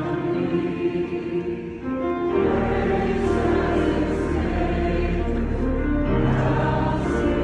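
Church worship music: voices singing together in long held notes over instrumental accompaniment, with a deep bass coming in about two seconds in.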